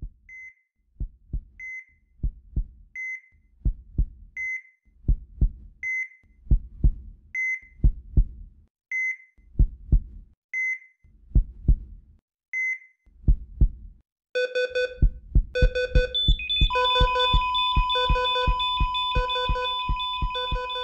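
Sound effect of a slow heartbeat, double thumps about every one and a half seconds, each paired with a short high beep like a hospital heart monitor. About fourteen seconds in the beeping turns faster and lower. A couple of seconds later a steady high tone sets in and holds, like a monitor's flatline, the sign that the heart has stopped.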